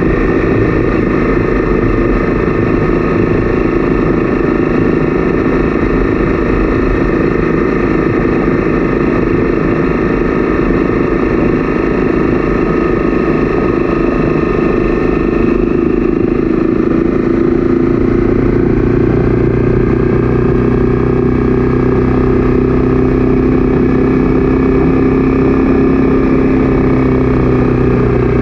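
Honda CB300F's single-cylinder engine running steadily as the motorcycle cruises, heard from on board. Its note changes a little about two-thirds of the way through.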